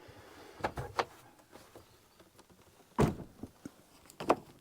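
A handful of knocks and clunks, the loudest about three seconds in, from carrying the old caravan microwave out through the caravan's door.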